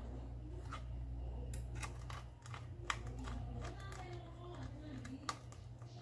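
Irregular small clicks and taps of hands handling laptop parts and components, over a steady low hum.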